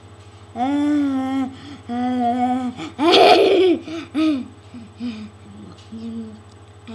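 A child making two long, wavering vocal sounds, then a loud burst of laughter about three seconds in, followed by softer voice sounds. A steady low buzz runs underneath.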